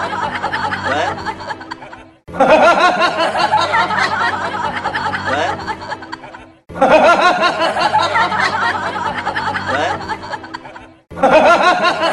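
Looped laughter sound effect: the same stretch of snickering laughter repeats about every four and a half seconds. Each time it starts loud, fades, and cuts off in a brief silence before it begins again.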